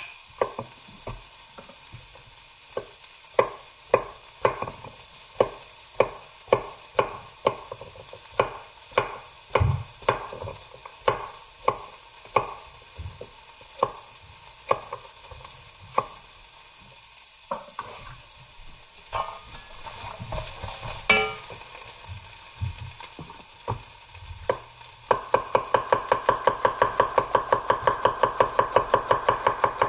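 Tosa nakiri knife chopping a carrot on a wooden cutting board: single sharp knocks of the blade on the board, one every half second or so, then a stretch of softer handling sounds. About 25 seconds in, the chopping turns into a fast, even run of strokes as a jalapeño is sliced into thin rounds.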